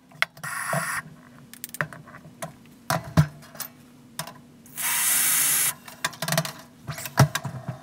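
Espresso machine being used: two hissing spurts of about a second each, a short one near the start and a steadier, louder one about five seconds in, among sharp clinks and clicks of a cup and spoon being handled at the machine.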